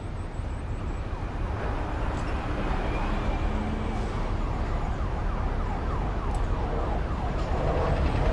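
A siren sweeping rapidly up and down over a low rumble, growing steadily louder.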